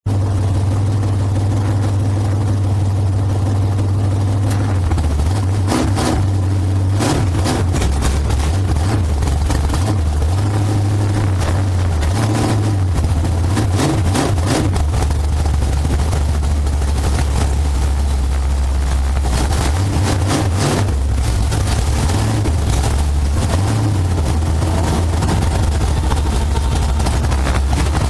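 Dirt-track race car engine idling loudly, heard from inside the cockpit, its note rising and falling a few times with scattered knocks and clatters.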